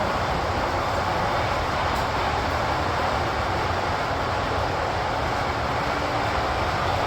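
O-scale model train running on the layout's track, a steady, even running noise.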